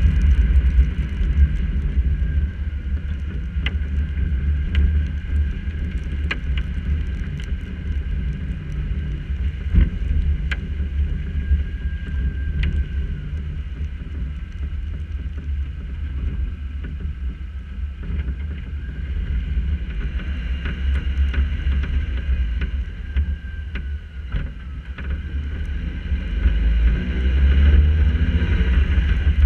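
Car driving on wet streets heard through a hood-mounted camera: a steady, muffled low rumble of road and wind noise on the housing, with scattered sharp ticks of raindrops striking the camera. The rumble grows louder near the end.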